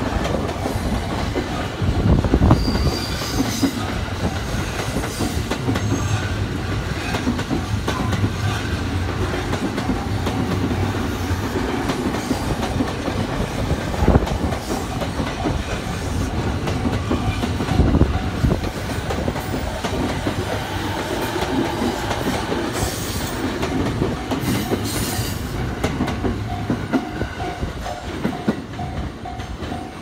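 A JR E217-series electric multiple unit rolling past close by, its wheels clattering over rail joints with a periodic thump and a low motor hum. Near the end, as the train noise eases, a Japanese level-crossing alarm is heard dinging at a steady rhythm.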